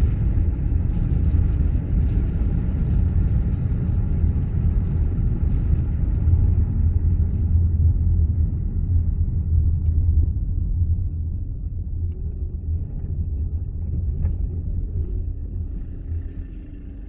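A car on the move: a steady low rumble of engine and road noise. A lighter hiss dies away about halfway through, and the rumble eases off near the end.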